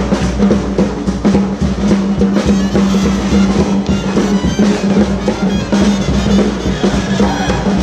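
A live jazz parade band of brass horns and drums playing on the march, with a steady low tone held under it.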